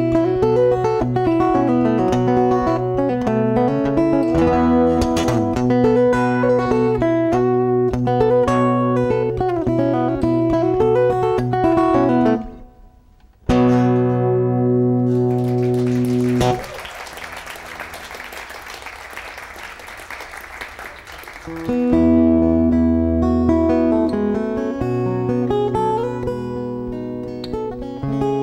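Acoustic guitar fingerpicked over a steady low drone note, breaking off just past the middle and ending on a held ringing chord. Several seconds of applause follow, then the guitar starts a new fingerpicked tune near the end.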